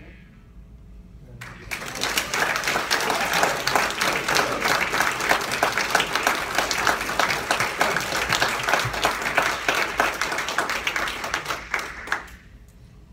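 Audience applauding, starting about a second and a half in and fading out near the end.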